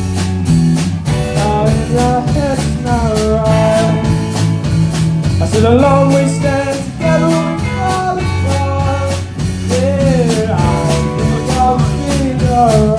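Rock band playing a song: a sung melody over electric guitar, bass and a drum kit keeping a steady beat.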